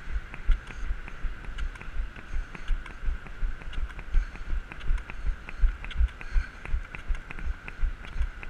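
Running strides: heavy thumps about twice a second with sharper clicks between them, over a faint steady high hum.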